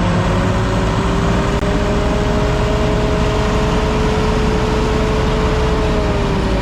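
John Deere 6600 combine running with its threshing machinery turning: a loud, steady mechanical din with a low hum and a steady whine whose pitch sags slightly near the end.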